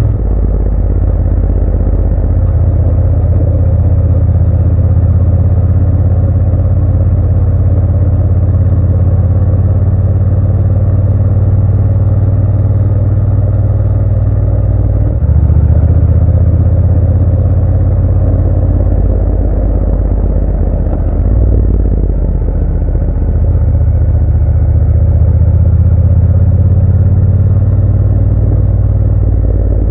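Motorcycle engine running steadily under way on the road, the engine note stepping up about halfway through and dipping and changing again a few seconds later.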